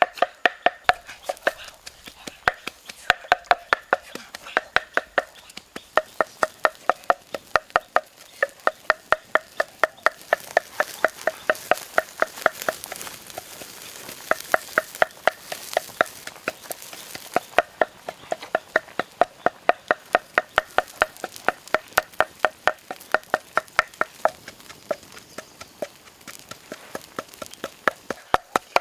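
A knife chopping rhythmically on a cutting board, about three or four chops a second with a few brief pauses.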